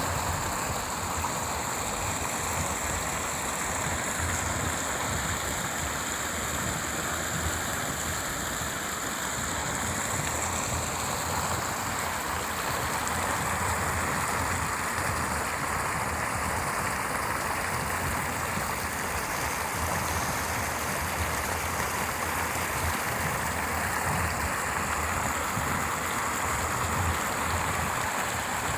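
A stream running: a steady, unbroken rush of flowing water.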